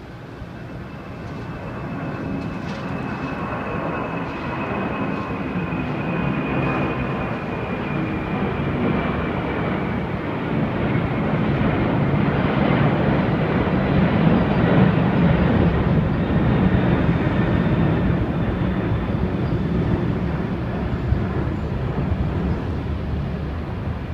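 Boeing 747-8's four GEnx turbofan engines at take-off thrust as the jet climbs out and passes by: a deep rumbling jet noise that builds for about twelve seconds, peaks, then slowly fades. A high whine falls in pitch during the first ten seconds.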